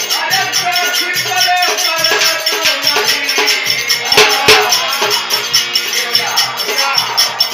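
Village devotional bhajan: a man's singing voice over a rattling hand-held percussion instrument that keeps a quick, steady beat. The music gets loudest a little past halfway.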